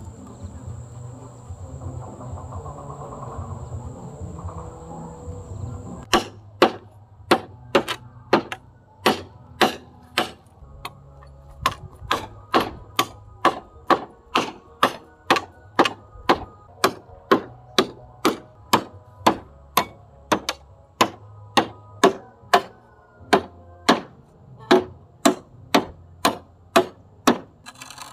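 Repeated sharp blows of a hand tool on wood, about two a second, starting about six seconds in and keeping an even beat.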